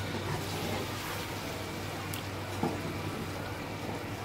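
Chicken karahi cooking in the pan, a steady sizzle as a metal spoon stirs the chicken, tomatoes and yogurt, with a light knock of the spoon against the karahi about two and a half seconds in.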